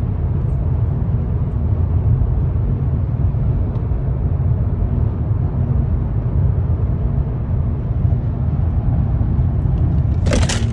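Steady low road and engine drone inside a car cabin at motorway speed. A short loud burst of noise comes near the end.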